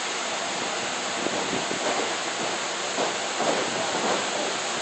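Steady noise of a small hall with faint, indistinct crowd chatter, and no clear slaps or ring impacts.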